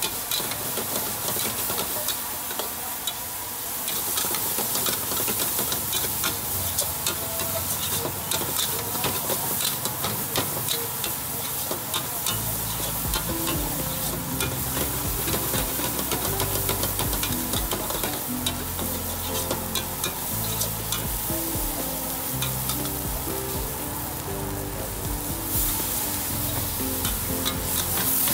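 Meat stir-frying in a wok over a gas burner: a steady sizzle with a metal spatula scraping and clacking against the wok, the sizzle growing louder near the end as the wok flares. From about twelve seconds in, background music with a low bass line plays under it.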